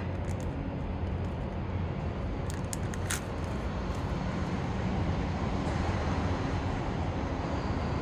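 Steady low background rumble, with a few brief crinkles of a plastic parts bag about three seconds in as a new rubber dust seal is handled.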